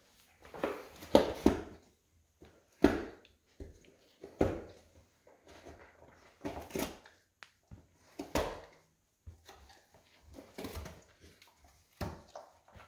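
American Akita puppy tugging and mouthing at a plush dog toy in a game of tug-of-war: irregular short bursts of scuffling, rustling and mouth noise, roughly one every one to two seconds, the loudest in the first three seconds.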